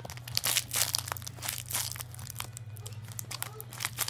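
A bag crinkling and rustling as it is handled, in quick irregular crackles, over a low steady hum.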